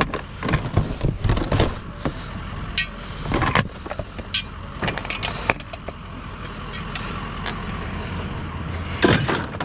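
Scattered metal knocks and clanks as small electric motors are handled and set down, over a steady low rumble.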